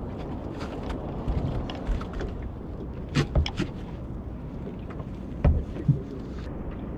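Steady low rumble of wind and water around a small open fishing boat, with a few sharp knocks about three seconds in and twice more after about five and a half seconds.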